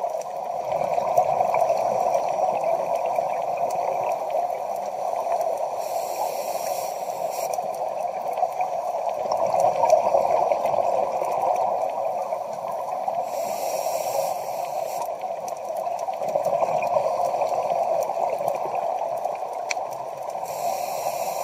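Scuba regulator breathing heard underwater: a short hiss of inhalation about every seven seconds, each followed by a gurgling rush of exhaled bubbles, over a steady underwater noise.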